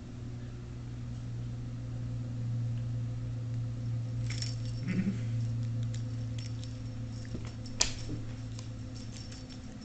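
Kittens playing with a feather wand toy: light scattered clicks and rattles of the toy and scrambling paws from about four seconds in, with one sharp click near eight seconds, over a steady low hum.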